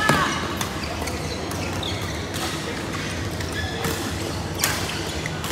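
Badminton rally: rackets striking the shuttlecock with sharp smacks every second or so, the loudest near the start and about four and a half seconds in, with a shoe squeak on the court floor at the start and players' voices in the background.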